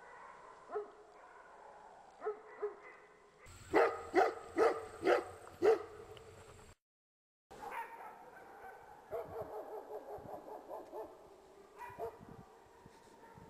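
Maremma sheepdog barking. A few single barks come first, then a run of five loud barks about four seconds in. After a brief break there is a quicker run of fainter barks.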